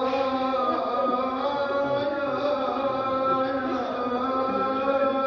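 A man's voice chanting a Muharram mourning elegy for Imam Husayn, drawing out long held notes.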